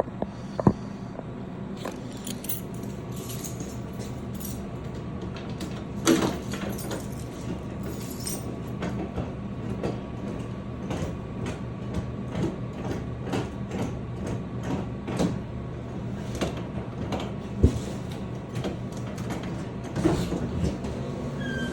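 A vending machine being opened and worked on: scattered clicks and rattles, with a few louder knocks, over a steady electrical hum.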